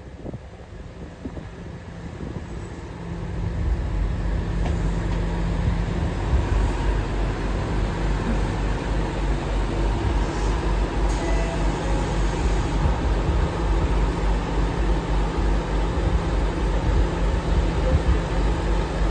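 Diesel engine of a JR Kyushu KiHa 200 series railcar rumbling as the train draws up at the platform. It grows louder about three seconds in, then runs steadily at idle while the railcar stands at the station.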